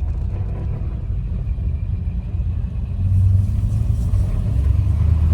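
1946 Hudson Commodore Eight's flathead straight-eight engine running low as the car goes through a U-turn, heard from inside the car. The low drone grows louder about three seconds in.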